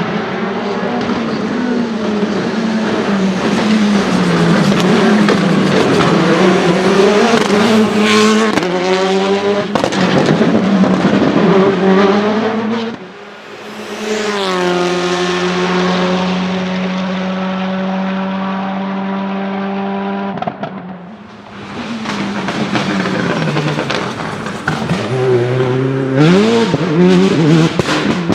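Citroën Xsara WRC rally car's turbocharged four-cylinder engine driven hard, its pitch climbing and dropping again and again through quick gear changes. A few sharp cracks come through, and the sound drops away briefly twice, about halfway through and again later on.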